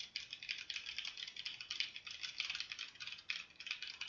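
Computer keyboard being typed on fast during a typing speed test: a continuous run of rapid keystrokes, many clicks a second.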